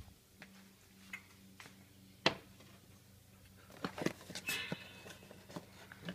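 Light clicks and knocks of things being handled on a kitchen counter and stovetop, with one sharper knock about two seconds in and a short cluster of clatter around four seconds, over a faint steady hum.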